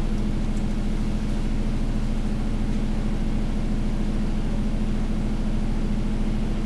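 Steady background hum and hiss of room noise with a constant low tone. Nothing starts or stops.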